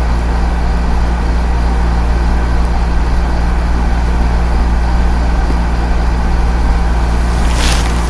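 Steady low rumble with a constant hum, like an idling vehicle, and a short burst of hiss near the end.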